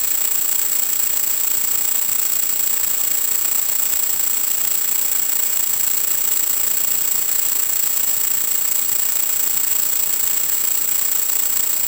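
Steady hiss of radio static with a constant thin high whistle, from the audio channel of an analog 1.2 GHz FPV video downlink as recorded at the ground receiver.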